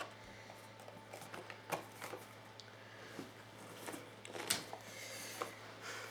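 Faint rustling and a few light clicks and taps as packaging and small parts are handled, with a louder tap about a second and a half in and another near four and a half seconds.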